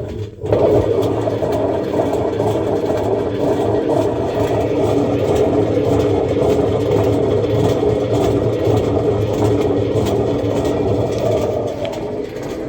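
Samsung washing machine drum spinning with a loud, steady rumbling noise that starts about half a second in and eases slightly near the end, the sign of faulty drum bearings.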